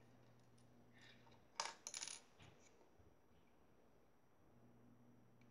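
Small plastic toy traffic signs knocking and being set down on a wooden tabletop: a short cluster of clicks and clatters about a second and a half in. Otherwise near silence.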